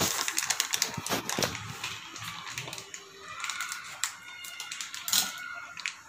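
Plastic buttermilk pouch crinkling in the hand and being snipped open with scissors: a string of small crackles and clicks.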